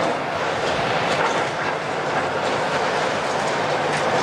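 Caterpillar 352 tracked excavator with its Cat C13 diesel running, and the steady clanking clatter of its steel tracks and undercarriage as it moves. A few sharper metallic clinks come about a second in and near the end.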